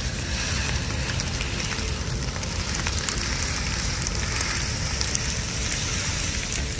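Brush pile and dry grass burning: a steady rushing noise from the flames, thick with small sharp crackles and pops.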